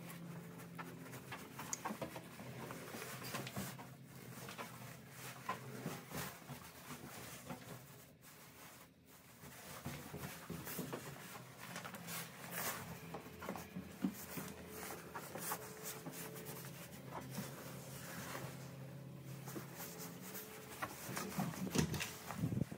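Faint room tone with a low steady hum. Soft rubbing and clicking from a handheld phone being carried through the rooms, and a duller bump near the end.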